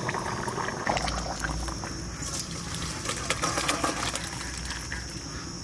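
Hot, thick fish-and-taro curry being poured from a wok into a steel bowl: liquid sloshing and splattering, with metal clinking and scraping as the wok rim meets the bowl.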